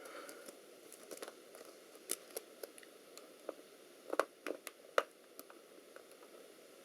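Scattered small clicks and taps of a plastic laptop case being handled and pried during disassembly, with a few sharper clicks about two, four and five seconds in.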